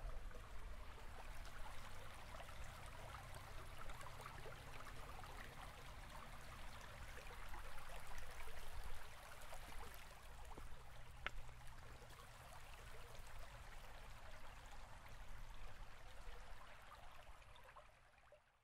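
Running water of a stream, a steady babbling trickle over a low rumble, fading out near the end.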